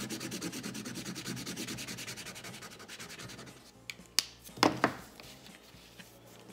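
A felt-tip marker scribbling fast back and forth on brown grocery-bag paper, colouring in an area with quick, even rubbing strokes. About four seconds in the scribbling stops and there are a few sharp clicks and knocks as the marker is put down on the table.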